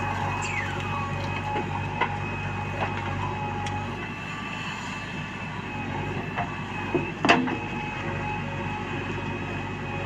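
JCB backhoe loader's diesel engine running steadily with a constant whine, broken by a few sharp metallic knocks, the loudest about seven seconds in.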